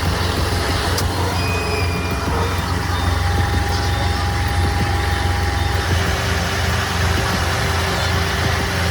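Heavy-haul truck engine running steadily under load, with a deep, even rumble.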